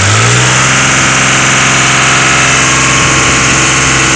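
Case IH JX55T tractor's diesel engine just after starting: it rises briefly in pitch in the first half second, then settles into a steady idle.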